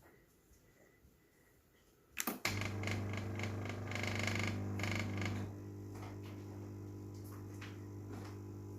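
A Sage espresso machine's vibratory water pump switching on with a click about two seconds in and running with a loud, steady hum and rattle that eases to a steadier, slightly quieter hum a few seconds later. This is the machine's fault noise, which the owner traced not to the pump but to a pipe clogged with scale.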